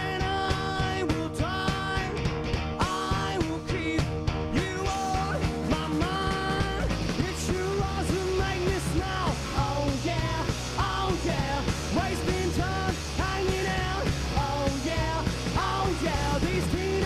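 Live rock band playing: distorted electric guitar, electric bass and drums under sung vocals from the guitarist and the female bassist. The band sound thickens, with a heavier low end, about seven seconds in.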